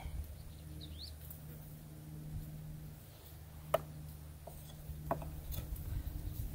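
Quiet outdoor background with a steady low hum, a short high rising chirp about a second in, and a few faint clicks and taps in the second half.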